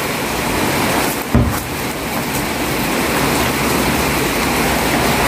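Heavy rain falling steadily, a dense even hiss, with one dull thump about a second and a half in.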